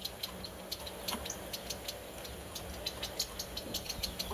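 Light, fast ticking: many short high clicks, several a second and unevenly spaced, over a faint steady low hum.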